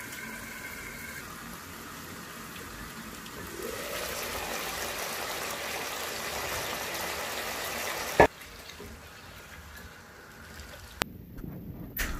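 Pot of potatoes and carrots simmering in a little water, a steady bubbling hiss that grows louder a few seconds in. One sharp click about eight seconds in, after which the simmer is quieter.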